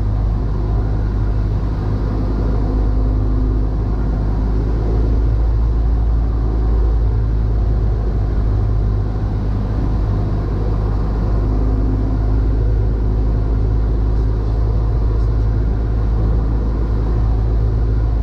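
Cessna 172's piston engine and propeller running with a steady, deep drone during a landing approach.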